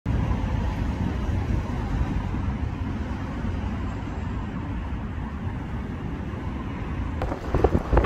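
Strong storm wind buffeting the microphone: a steady low rumbling rush that flickers unevenly, breaking into louder, crackling gusts in the last second.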